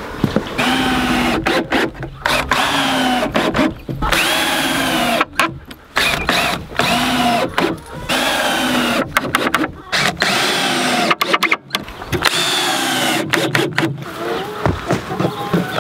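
Cordless drill driving screws into mahogany boards: a run of short bursts, each about a second long, the motor's whine rising and then falling with each screw.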